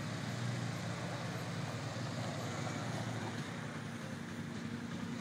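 A tractor engine idling steadily.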